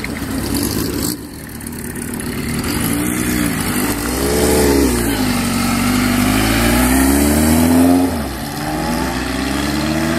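Kawasaki KZ1000's air-cooled inline-four, through a custom one-off exhaust, pulling away from rest. The engine note climbs in pitch and drops back several times as the bike accelerates, getting louder as it goes.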